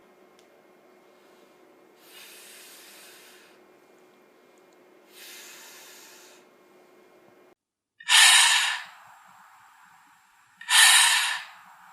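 Repeated 'fff' hisses, the letter F's /f/ sound made like air escaping from a punctured inflatable fish: two faint ones, then two loud, short hisses in the second half.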